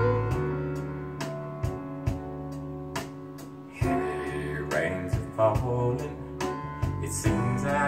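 Recorded soul ballad played back over a pair of stereo bookshelf loudspeakers in a listening room: bass and guitar over a steady beat about twice a second, with a male voice singing from about four seconds in.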